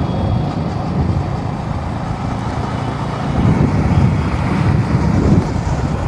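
Motorcycle riding along a road, its engine running with wind and road noise on the rider's microphone, a little louder in the second half.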